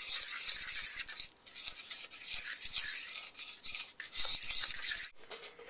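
Thick rice-flour batter being stirred in a mixing bowl, the utensil scraping and rasping against the bowl in quick, irregular strokes that stop about five seconds in.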